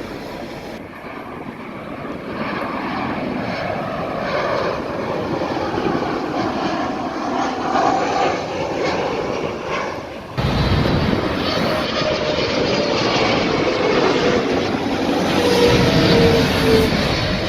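Jet airliner engines passing low, with a whine that falls slowly in pitch. About ten seconds in, the sound jumps suddenly to a louder, deeper rumble.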